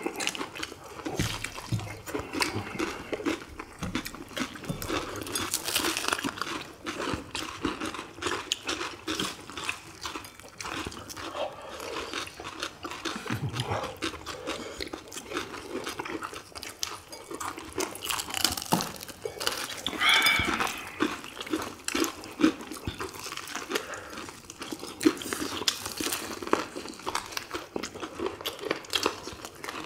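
Close-miked eating of crispy fried chicken drumsticks: a steady run of crunching bites, chewing and mouth sounds.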